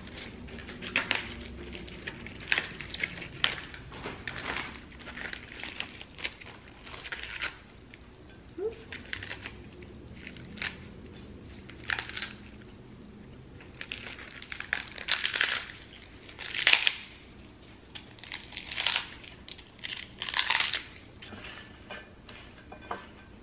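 Crisp romaine lettuce leaves being torn and snapped apart by hand: a string of irregular crunchy snaps and rips.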